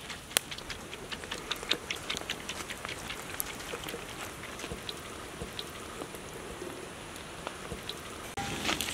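Scrambled egg pieces tipped from a steel bowl, pattering down onto fried rice in a large iron wok: a quick run of light ticks that thins out after a few seconds. A louder, noisier sound sets in near the end.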